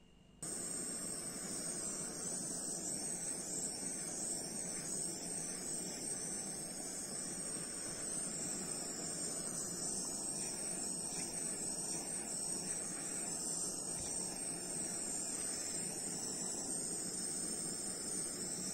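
Handheld butane torch burning with a steady hiss, starting abruptly about half a second in.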